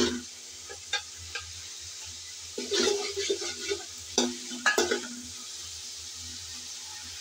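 Metal spatula scraping and knocking against an aluminium pot as a fish head is stirred in frying spice paste, over a steady sizzle. The scrapes come in bursts, a few about a second in and more around the middle.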